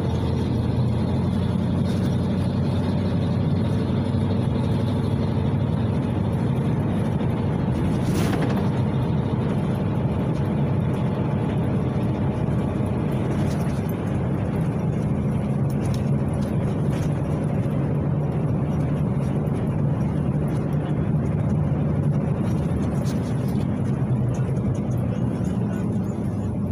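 PAZ-32054 city bus driving, heard from inside the passenger cabin: a steady low drone of engine and road noise. A single short click or knock sounds about eight seconds in.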